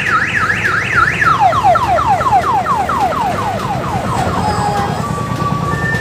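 Loud electronic siren of a diesel odong-odong tour train: a fast up-and-down warble about three times a second, which about a second in switches to a falling sweep repeated about four times a second. Near the end it gives way to steady held tones, all over the low running of the diesel engine.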